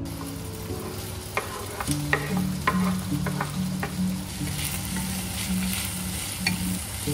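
Sliced sausages and diced onion sizzling in a frying pan while being stirred with a wooden spoon, with a run of light clacks of the spoon from about one to four seconds in.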